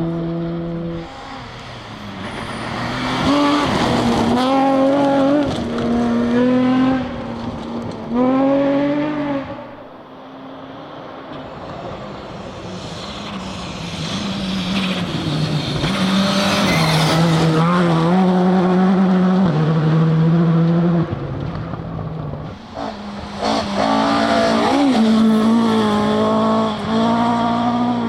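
Rally car engines revving hard, the pitch stepping up and dropping back with gear changes, with tyre noise, in three loud stretches starting about one, eleven and twenty-three seconds in.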